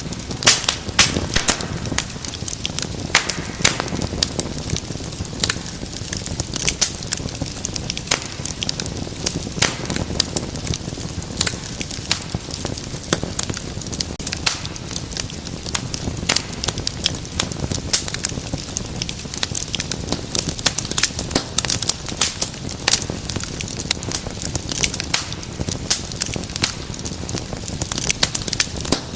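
Wood fire crackling steadily, with many sharp irregular pops and snaps over a low rumble of burning.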